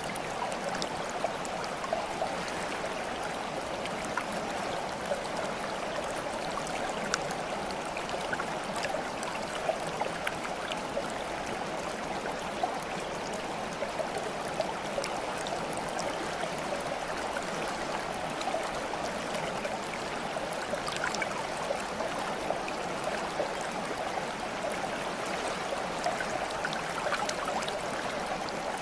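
Flowing water running steadily, like a babbling stream, with small scattered plinks and splashes.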